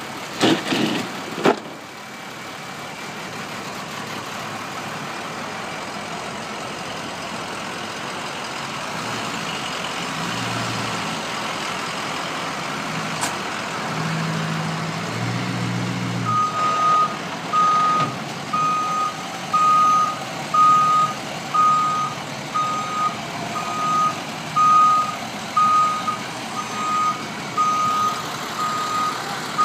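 A truck's reversing alarm beeping about once a second, starting a little past the middle, over a running vehicle engine. Two sharp knocks sound about a second in.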